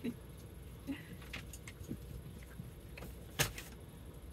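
Faint handling noises: a few light clicks and rustles, with one sharper click about three and a half seconds in, over a low steady hum.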